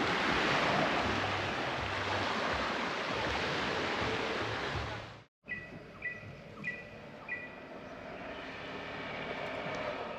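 Waves breaking on a beach, an even rushing wash for about five seconds, then an abrupt cut to quieter outdoor ambience in which a short high two-note chirp repeats three times.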